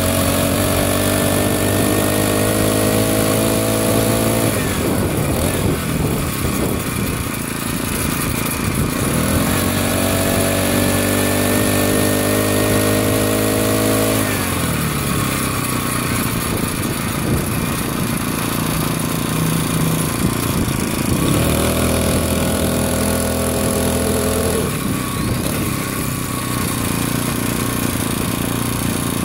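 Small gas engine of a motorized bicycle pulling under throttle three times, its pitch climbing slowly each time before it drops off abruptly to a rougher, unpitched running sound, with rushing wind noise throughout.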